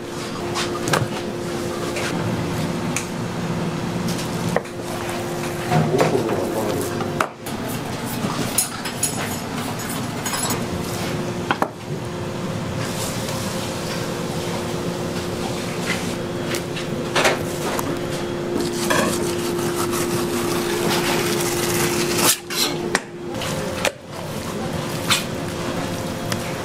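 Kitchen work sounds: scattered knocks and clatter of knives, utensils and dishes over a steady low hum of kitchen equipment.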